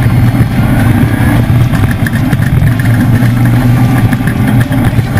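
Leaf-sprung Ford off-road race truck's engine running loud and steady with a deep rumble.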